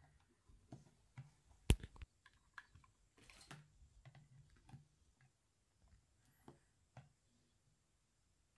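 Light clicks, knocks and rustles of a plug-in AC adapter and its cable being handled and the adapter pushed into a mains extension socket, with one sharp click about a second and a half in and a brief scrape a couple of seconds later.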